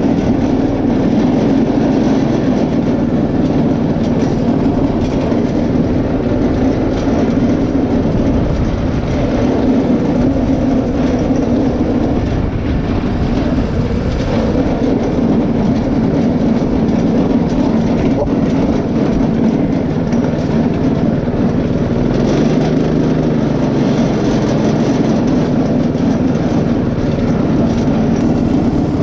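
Go-kart's Predator single-cylinder four-stroke engine running steadily under load as the kart is driven, its pitch shifting a little now and then. The engine has its governor removed and drives through a new clutch and chain.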